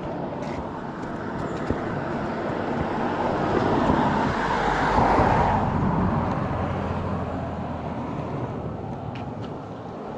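A road vehicle passing on the road, its tyre and engine noise building up to a peak about halfway through and then fading away.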